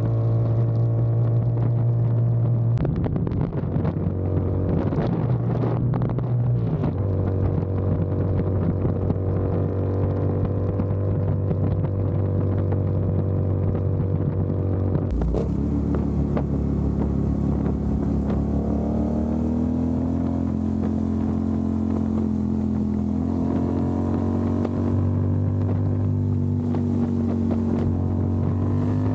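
Motorcycle engine running at cruising speed under a rider, with road and wind noise. The engine note holds steady with a few shifts in pitch, changes abruptly about halfway, then climbs slowly as the bike speeds up.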